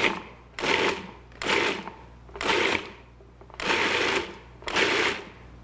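Food processor pulsed in short bursts, about five pulses of roughly half a second each with brief pauses between, chopping cannellini beans and black olives in olive oil into a chunky spread.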